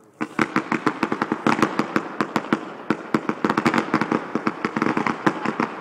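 Fireworks going off in a rapid barrage: a dense string of sharp bangs and crackles, several a second, starting just after the beginning and running on without a break.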